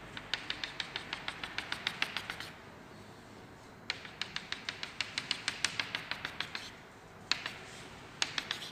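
Chalk tapping out dashed lines on a chalkboard: quick runs of sharp taps, about six a second, in two long runs with a pause between, then a single tap and a short run near the end.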